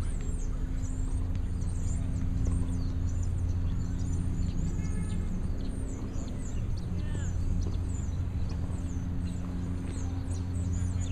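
Small birds chirping repeatedly in short high notes over a steady low hum.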